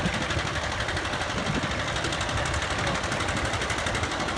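Farm tractor engine running hard under load as it drags a pulling sled, a steady, rapid firing rumble.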